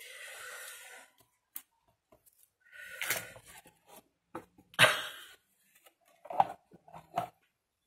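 Handling of a papercraft cardboard satchel: paper and card rustling and scraping as it is turned over on the table, a sharp knock about five seconds in as it is set down, then a couple of lighter taps.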